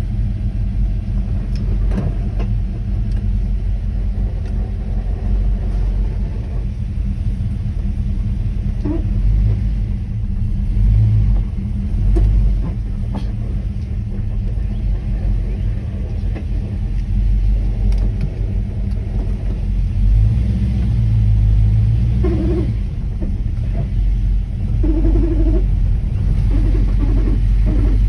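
The 1979 Camaro Z28's V8 running with a steady low rumble. Short higher-pitched chirps come through now and then, several of them close together near the end.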